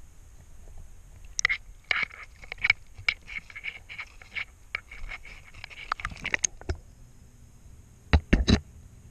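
Water splashing and dripping on a GoPro's waterproof housing as it is brought up through a small pond's surface and put back under. Three heavy knocks come near the end.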